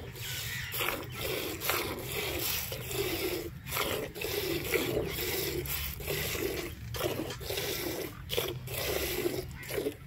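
Water buffalo being milked by hand: jets of milk squirt from the teats into a steel bucket already partly full of frothy milk, a hissing, splashing rush repeated stroke after stroke in a steady rhythm.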